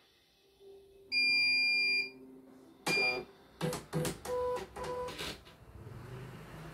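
CNY computerized embroidery machine powering up: one loud beep lasting about a second, then a shorter beep, a quick series of clicks and knocks with brief motor whines as the mechanism initializes, and a low hum near the end. The machine starts up normally.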